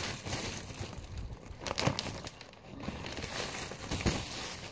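Thin clear plastic bag crinkling and rustling as it is handled right against the microphone, with a few sharper crackles.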